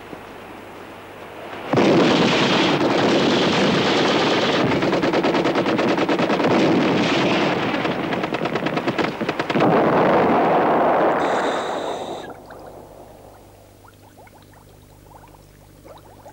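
Sustained automatic gunfire, dense rapid shots starting about two seconds in and going on for about ten seconds before dying away. Faint underwater bubbling from scuba divers follows near the end.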